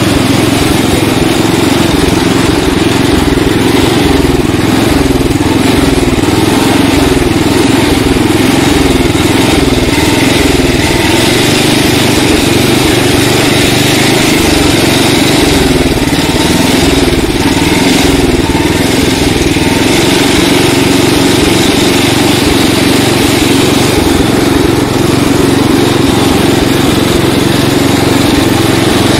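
Riding lawn tractor's small gasoline engine, which the owner thinks is a Tecumseh, running steadily while the tractor is driven, its note wavering slightly.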